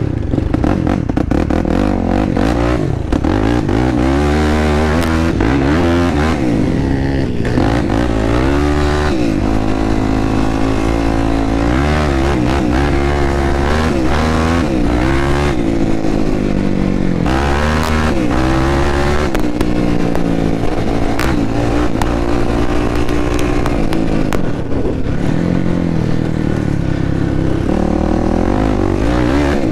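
Single-cylinder four-stroke sport quad engine under way on a dirt trail, its pitch rising and falling again and again as the throttle is opened and eased off, with scattered clicks and rattles from the machine and the trail.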